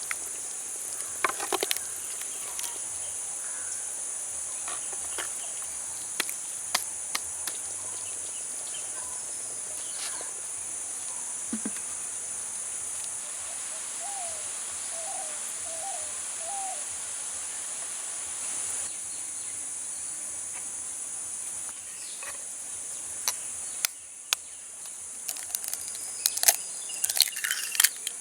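Steady high-pitched drone of insects, with scattered sharp clicks and knocks that bunch up in the last few seconds. A short run of four or five bird chirps comes about halfway through.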